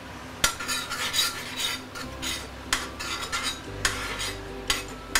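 A metal spoon stirring thin oyster-sauce gravy in a stainless steel pan. It opens with a sharp clink about half a second in, then scrapes and clinks against the pan's sides and bottom in repeated strokes with short pauses.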